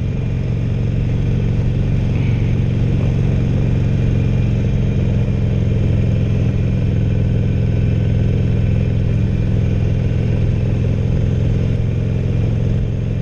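Harley-Davidson Sportster 1200 Roadster's air-cooled 1200cc V-twin running steadily at an even cruise, around 2,500 rpm, heard from the bike.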